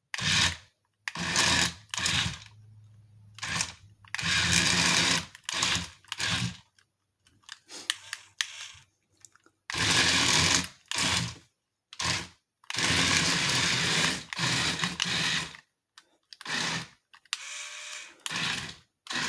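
Small battery-powered electric drive motors and gearboxes of a 1:35-scale RC Cat D7E bulldozer whirring in repeated short bursts, each up to about a second and a half with quiet gaps between, as the toy is driven back and forth at a pile of dirt.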